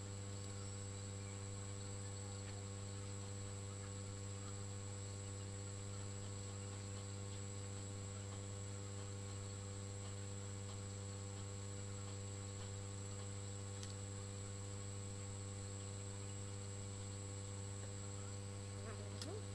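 Steady electrical mains hum, low and unchanging, with a thin high whine above it.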